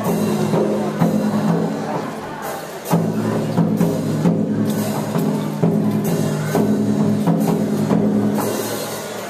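Music with sustained low notes and sharp percussion strikes.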